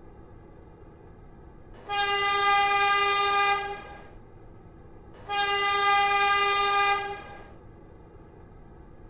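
A horn sounding two long blasts of one steady pitch, each lasting nearly two seconds, the second following about a second and a half after the first.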